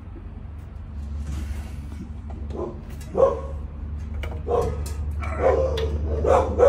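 A dog barking repeatedly, starting about two and a half seconds in and getting louder, over a steady low hum.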